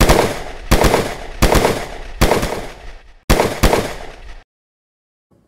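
Revolver gunshots: about eight shots, several in quick pairs, each with a short ringing tail, stopping after about four seconds.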